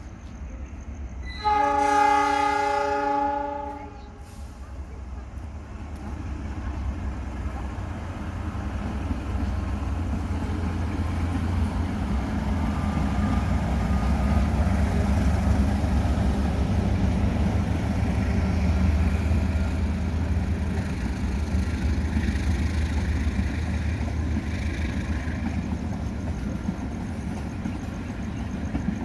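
Train horn sounding one blast of about two seconds, then a train passing: the rumble of its wheels on the rails builds over several seconds and stays loud through the rest.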